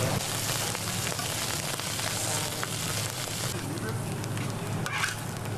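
Food frying on a street-food stall's hot cooking surface, a steady sizzling hiss over a low steady hum.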